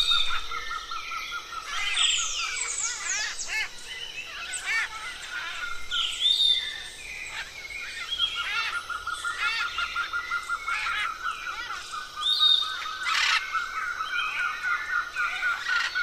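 Rainforest soundscape of many birds chirping and whistling, some with quick falling whistles, over a steady high rapid trill that drops out for a couple of seconds near the middle.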